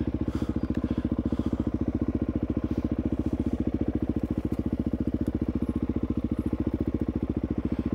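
Suzuki DR-Z400E's single-cylinder four-stroke engine running at low, steady revs, a fast, even pulse of about a dozen firing beats a second.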